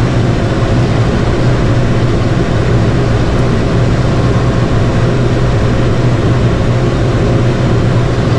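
Mahindra 85P tractor's diesel engine running steadily, a constant low drone with no change in speed.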